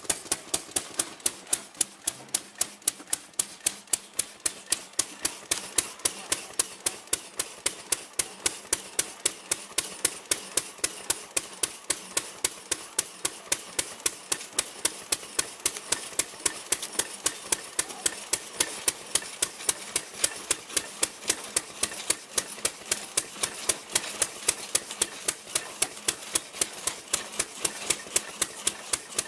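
Single-cylinder engine of an antique gas-powered drag saw running steadily as its blade cuts through a log, giving sharp, even beats about three to four a second.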